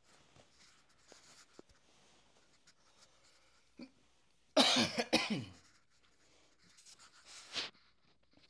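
A man coughs twice, loudly, about halfway through, amid faint rustling of bedding and clothes as he shifts on the bed.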